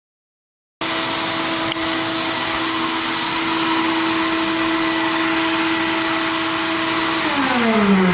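Media blasting cabinet's air nozzle hissing steadily, starting abruptly about a second in. A steady hum runs under the hiss and drops in pitch near the end.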